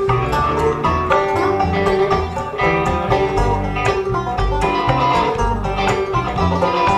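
Live bluegrass instrumental: banjo picking quick notes over a plucked upright bass and electric guitar.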